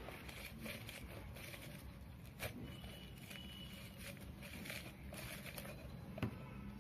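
Orange half pressed by hand onto a plastic manual citrus reamer: faint wet squishing and crackling of the pulp, with a couple of sharper clicks, over a steady low hum.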